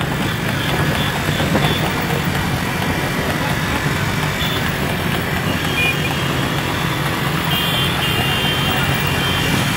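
Motorcycle engines running steadily at road speed, with wind and road noise; a few short, high beeps near the end.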